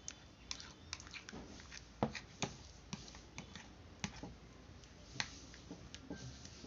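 Metal spoon stirring a thick paste in a small glass bowl, clinking and ticking against the glass at irregular intervals, the loudest clinks about two seconds in and a little after five seconds.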